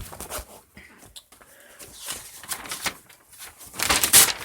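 Paper being handled and rustled, with irregular crinkles and small knocks, the loudest burst of rustling about four seconds in.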